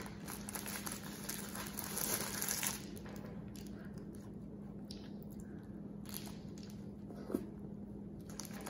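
Soft, quiet chewing of a mouthful of fried fish sandwich, with light handling of its paper wrapper, a little louder in the first few seconds. A steady low hum runs underneath, and there is a small click near the end.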